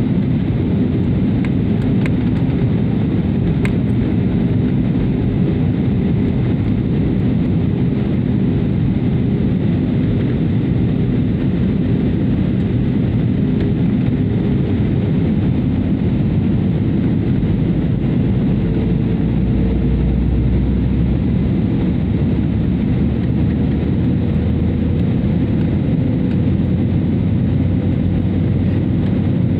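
Steady cabin noise of an Airbus A320-family airliner in flight: jet engines and rushing air, heard inside the cabin. A faint hum within it moves slightly higher in pitch about two-thirds of the way through.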